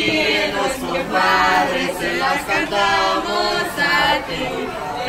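A group of restaurant staff singing a birthday song together, unaccompanied, in a run of held, drawn-out phrases.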